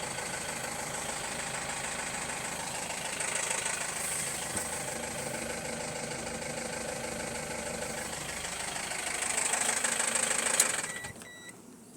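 Toyota 1AZ-FSE 2.0-litre four-cylinder engine running with the knock of piston slap. The engine cuts off about a second before the end, followed by a few short electronic beeps.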